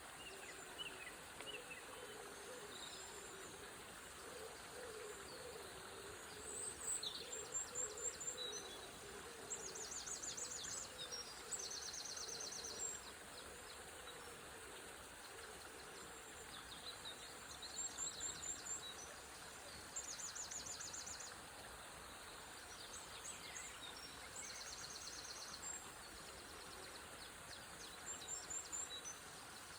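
Songbirds singing in short bursts of rapid, high trills every few seconds over a steady rush of flowing water. A lower wavering call sounds between about four and ten seconds in.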